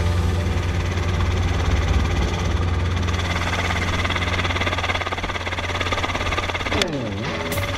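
Helicopter in flight with the doors off: a steady low drone from the rotor and engine, with wind noise over it. Near the end the drone drops away for a moment and a short falling-then-rising tone sounds.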